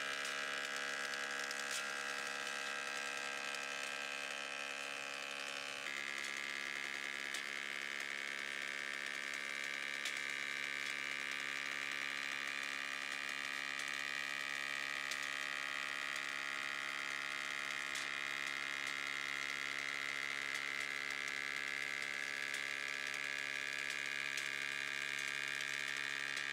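18-inch Woodmaster planer-molder running with profile knives, feeding a curved blank slowly through its cutter head: a steady machine hum. The tone changes abruptly about six seconds in and then holds steady.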